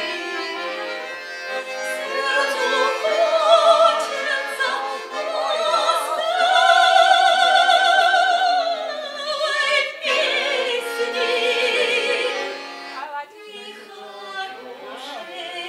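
A woman sings a Russian song live to instrumental accompaniment, in a trained style with strong vibrato. She holds a long, loud note in the middle, then sings on more quietly.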